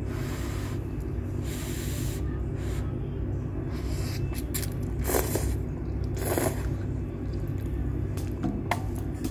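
Person slurping instant cup noodles in broth: several short, noisy slurps over a steady low hum.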